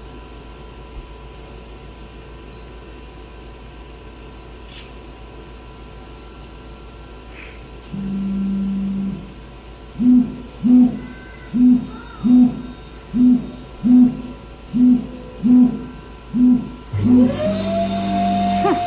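Automated cotton candy machine at work: a steady hum, then a short low tone, then about ten short, low hooting tones in a steady beat, roughly one every 0.8 s. Near the end a motor whine rises quickly and holds steady, like the spinning head coming up to speed.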